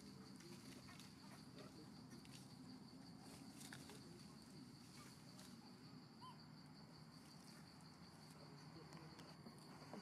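Near silence: faint forest ambience with a steady high-pitched insect drone over a low hum.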